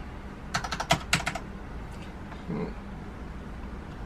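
Typing on a Corsair K68 mechanical keyboard with Cherry MX Red switches: a quick run of key strokes about half a second in, lasting under a second.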